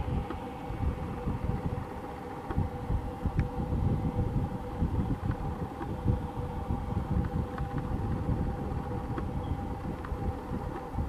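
Wind buffeting the microphone in uneven gusts over a steady two-note hum of airport machinery or distant jet engines.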